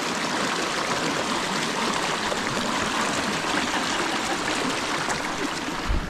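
Steady rush of a shallow, volcanically heated river flowing over rocks.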